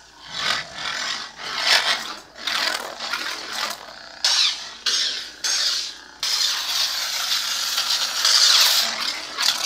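Lightsaber sound effects from the Kyberphonic "Second" sound font, played by a Proffieboard through the hilt's 22 mm speaker as the blade is swung: a string of separate hissing swing swells, then a continuous hissing stretch from about six seconds in.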